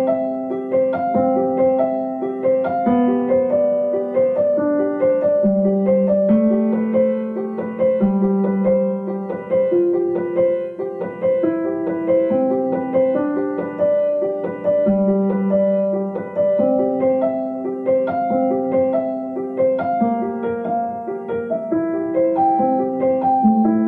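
Background music: a slow piano piece, with low notes held about a second or two each under a moving melody.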